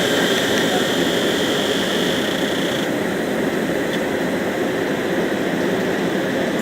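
Greater Anglia Class 90 electric locomotive-hauled train of Mark 3 coaches departing and running past, a steady mechanical and wheel noise with a high whine that stops abruptly about three seconds in.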